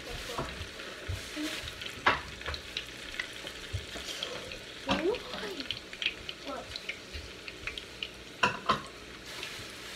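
Sausages sizzling and frying in a pan, with a few sharp knocks and clatters of utensils, the loudest a double knock near the end.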